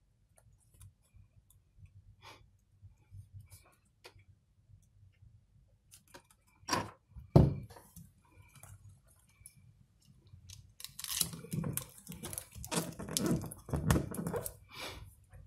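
Handling noise from an open tablet: small clicks and taps as the battery wire and circuit board are touched, and two sharper knocks about seven seconds in. Near the end come several seconds of crackling and rustling as fingers press down the tape over the battery.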